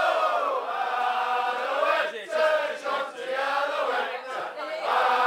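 A group of men singing a song together, with long held notes.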